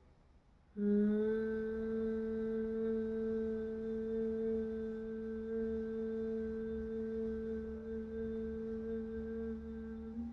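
One long, steady humming breath of Bhramari (humming bee) pranayama. The hum starts about a second in and holds one pitch for about nine seconds before stopping.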